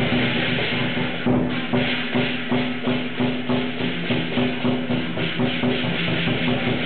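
Lion dance percussion playing: a run of drum beats and cymbal clashes over a steady ringing tone, typical of the drum, cymbals and gong that accompany a Chinese lion dance.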